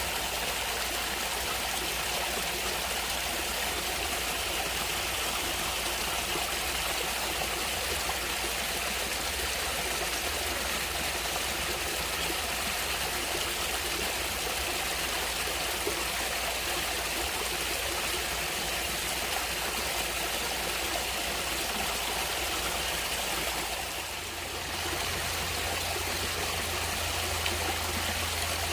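Stream water flowing and trickling with a steady rush; the sound briefly dips about 24 seconds in and then carries on.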